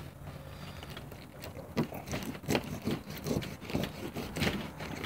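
A knife cutting into a yellow perch behind the head, under the fin: an irregular run of small crunching clicks and scrapes, mostly from about two seconds in.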